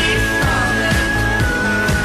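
Background music: a song with a steady drum beat and a long held high note that steps down slightly about halfway through.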